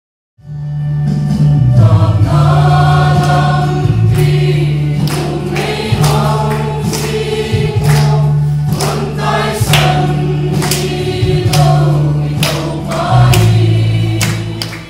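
Church choir of men and women singing a hymn together, with a steady beat and held low notes under the voices. It starts about half a second in.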